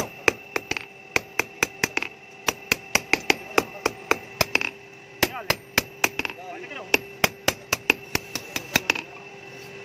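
Hand hammer forging a sickle blade on a steel anvil block: rapid blows, about three a second, each with a metallic ring. The hammering stops about nine seconds in.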